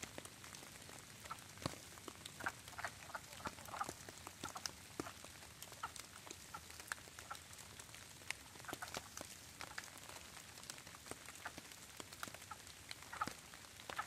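Faint chorus of wood frogs giving short, duck-like quacking calls, a few at a time and scattered irregularly, among scattered ticks of rain.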